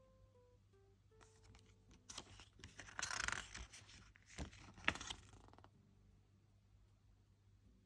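Faint handling of a K-pop album's paper and cardboard packaging, with a few short rustles and scrapes, the loudest about three seconds in and again about five seconds in, and a couple of light clicks.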